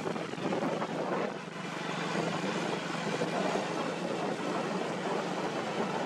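Mahindra tractor's diesel engine running steadily as the tractor drives along the road, a constant low drone.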